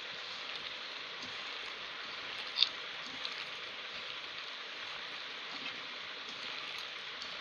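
Wet squelching of a hand kneading raw minced beef with egg and spices in a bowl, over a steady hiss. One short sharp click comes about two and a half seconds in.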